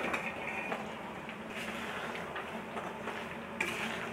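Thick sugar syrup, cooked to one-thread consistency, bubbling softly in a steel kadai over a low flame while a steel spatula turns fried dough pieces through it, with a short scrape of the spatula on the pan about three and a half seconds in.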